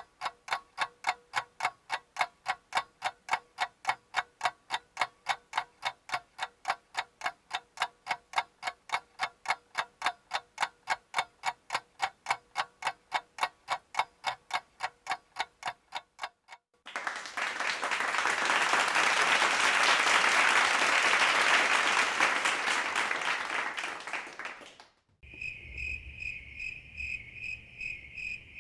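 A clock ticking quickly and evenly, about three ticks a second, for the first sixteen seconds. Then applause that swells and fades over about eight seconds. Near the end, crickets chirping in a steady pulsing rhythm.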